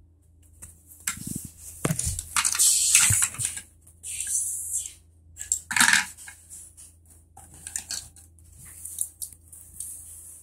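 Handling noises: irregular rustling and crinkling bursts with light clicks and clatter of small plastic building-brick pieces.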